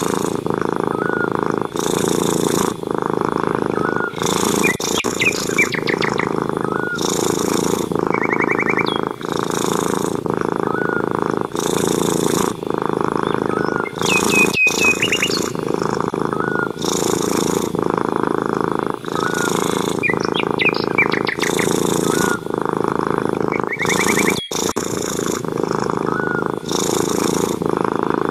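Domestic cat purring loud and steady, pulsing with each breath about every two seconds, with small birds chirping and trilling behind it.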